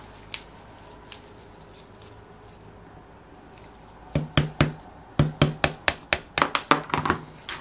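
Screwdriver handle tapping on the heated OS FF-240 Pegasus model engine to knock out a piston's wrist pin. Starting about four seconds in there are three quick sharp knocks, a short pause, then a steady run of taps at about four or five a second.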